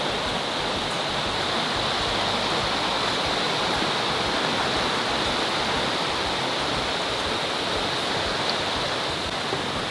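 Steady rush of water from Sipyen Waterfall and its stream.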